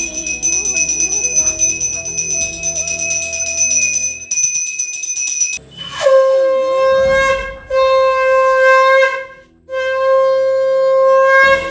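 Brass hand bell rung continuously during a Hindu aarti, stopping a little over five seconds in. Then a conch shell (shankha) blown in three long blasts, each starting with a short upward swoop in pitch, the conch blowing that marks the aarti.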